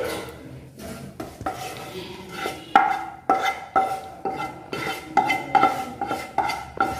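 Spatula scraping and knocking sautéed vegetables out of a frying pan into a glass mixing bowl. The knocks start faint and grow to about two a second, each followed by a short ringing tone.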